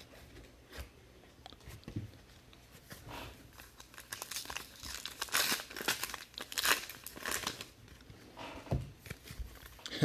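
Trading card pack wrappers being torn open and crinkled, in irregular rustling bursts that are busiest in the middle of the stretch.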